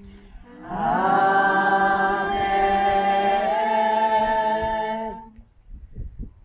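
Voices singing an unaccompanied, long held "Amen": the Great Amen that answers the closing doxology of the Eucharistic Prayer. It starts about a second in, steps up slightly in pitch midway and stops about five seconds in.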